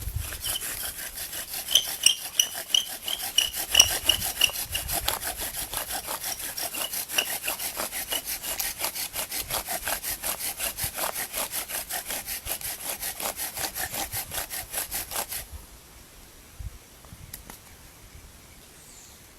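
Rapid, even back-and-forth strokes of wood working against wood, sawing or friction-drilling, with a brief squeak a few seconds in. The strokes stop abruptly about fifteen seconds in.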